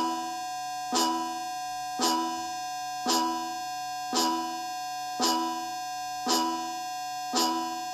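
Emergency alert alarm tone: a steady, many-toned droning chord with a sharp chime-like note struck over it about once a second, in an even repeating pattern.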